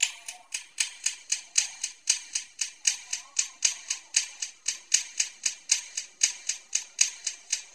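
A dog crunching dry kibble, chewing steadily at about four crunches a second.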